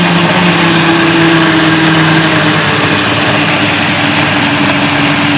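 Countertop blender running steadily on low speed 2, mixing thick muffin batter of eggs, oil, peaches, sugar and freshly added flour, with a steady motor hum under loud churning noise.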